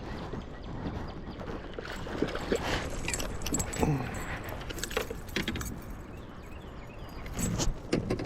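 Metallic jingling and clinking with light knocks: a spinnerbait's blades and hook rattling as a small bass is landed and handled.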